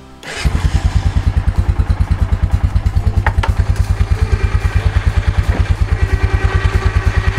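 1998 Honda Foreman 450's single-cylinder four-stroke engine idling steadily, a quick even beat of about eleven pulses a second. A light click comes about three seconds in.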